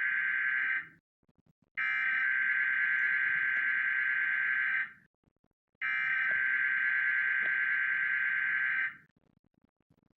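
Emergency Alert System SAME header: bursts of digital data tones encoding the alert's header, here for a Required Weekly Test. One burst ends under a second in, then two more each last about three seconds, with about a second's gap between them.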